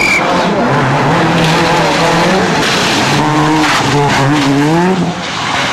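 Citroën Saxo VTS rally car's four-cylinder engine revving hard as it passes close by, its pitch rising and falling several times as the driver works the throttle and gears through a corner, with tyre and road noise.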